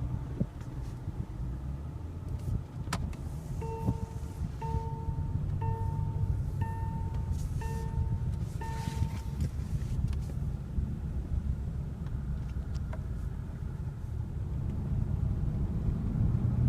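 Low engine and road hum heard inside the cabin of a 2015 Hyundai Equus with a 5.0-litre V8, setting off on a drive and growing louder near the end. An in-car electronic chime beeps six times, about once a second, from around four to nine seconds in.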